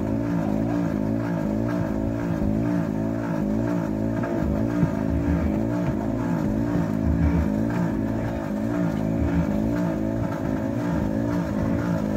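Fishing boat's engine running steadily, its pitch swinging up and down about twice a second.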